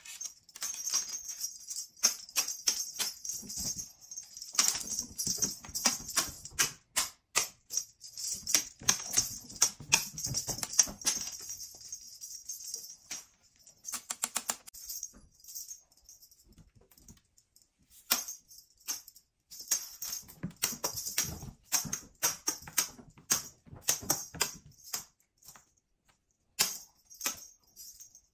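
Rapid, irregular clicking and tapping of a kitten's claws skittering on a hardwood floor and a feather wand toy knocking against it, in bursts with a couple of short lulls.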